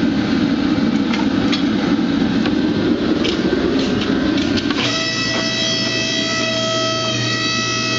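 Hydraulic forging press's motor and pump running steadily, with a few light clicks. About five seconds in, guitar music with held notes comes in.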